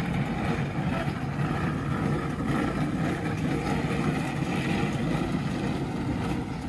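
Steady low rumble of wind buffeting the microphone outdoors, wavering a little in strength.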